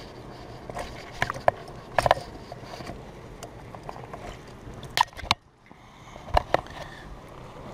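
Scattered sharp clicks and light metallic rattling of fishing tackle being handled: pliers working a lure's hooks free from a landed fish's mouth.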